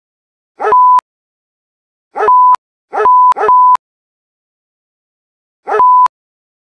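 A dog bark sound effect cut short after its first 'ruh' by a single-pitch censor beep, 'RUH-BEEEP', five times: about half a second in, about two seconds in, a quick pair around three seconds, and again near six seconds. Each repeat sounds the same, and each beep stops abruptly.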